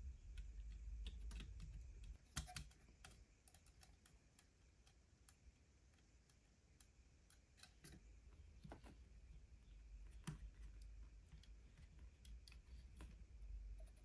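Faint, scattered clicks and taps of plastic model-kit parts being handled and pressed together as a rear fender is fitted to a 1/12 scale model motorcycle frame, over a low hum; the loudest click comes about two and a half seconds in.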